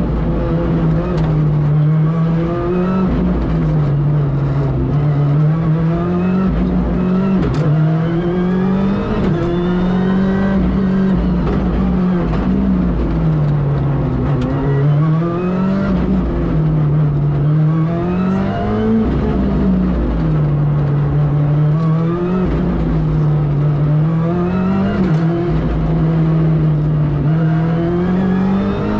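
Ford Fiesta R5 rally car's turbocharged four-cylinder engine at full stage pace, heard from inside the cabin. The revs climb and drop again and again through quick gear changes.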